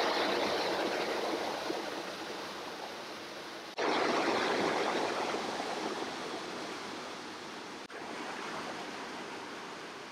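Rushing creek water pouring over boulders in a small cascade, a steady roar of white noise. The level changes abruptly twice, jumping up about four seconds in and dropping back about eight seconds in.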